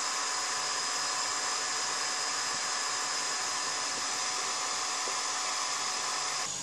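Hair dryer running steadily at full power, fed from a 12 V battery through an inverter.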